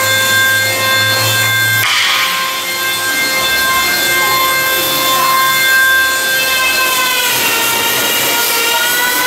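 Electric power tool running with a steady whine, with a brief rush of noise about two seconds in; its pitch sags and recovers near the end, as a motor does when it takes a load, here cutting wood.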